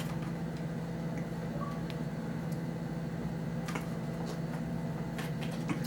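A steady low hum, with a few faint clicks and light taps, more of them near the end.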